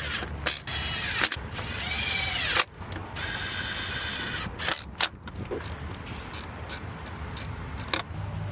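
An engine revving up and back down, then holding a steady note for a second or so, with sharp metallic clicks scattered throughout.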